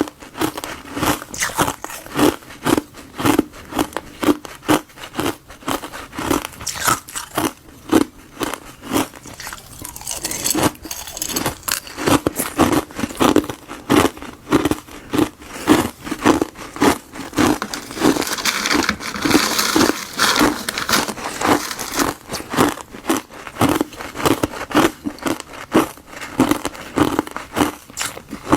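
Someone biting and chewing granules of ice frozen from buckwheat and gardenia tea, with crisp crunches at a steady pace of about two to three a second.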